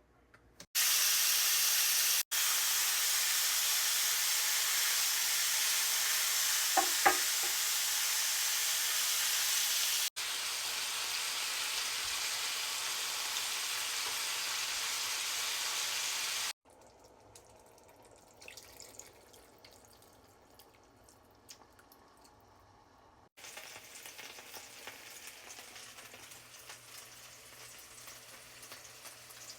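Beef tips sizzling as they fry in a pan, a loud steady sizzle that breaks off for a few seconds at each cut. It goes quiet for several seconds with a few faint ticks, then comes back as a softer sizzle.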